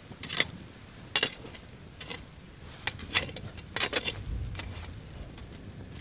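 Wood campfire crackling with irregular sharp pops, a quick cluster of them about four seconds in, as a stick prods the glowing coals and makes the embers clink.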